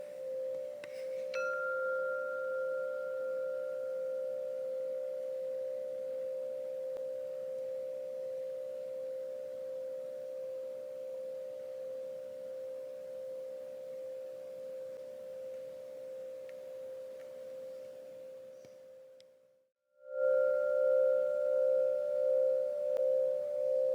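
Woodstock tuned metal-tube wind chime ringing with one long, slowly wavering tone. About a second in it is struck lightly, adding a brighter higher overtone that fades within a few seconds. The ring dies away gradually, drops out briefly, and near the end a fresh strike sets it ringing louder.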